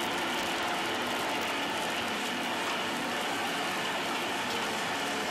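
Steady rushing roar of a commercial kitchen's gas burners running at high flame under a kadai.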